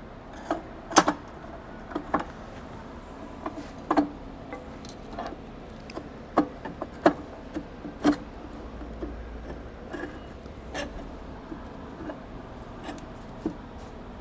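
Parts clicking and knocking as they are fitted into an air cart meter housing: the divider plate and the stainless steel half-width disconnect handles being set in place. Irregular single clicks, about a dozen, the sharpest about a second in and around the seventh and eighth seconds.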